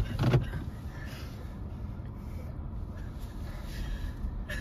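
Low, steady rumble of a Chevrolet car's engine and road noise heard from inside the cabin while driving, with a short thump at the very start.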